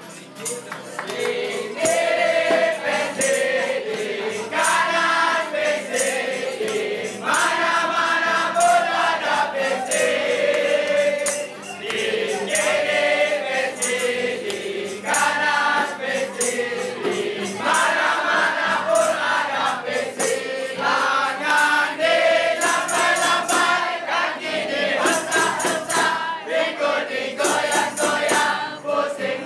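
A group of voices singing together to acoustic guitar strumming, with a steady beat of sharp strikes running under the song.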